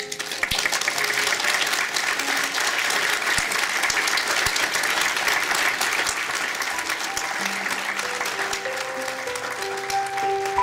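A crowd of guests applauding. The clapping starts suddenly, is full for most of the time, then thins out, while background music rises under it in the second half.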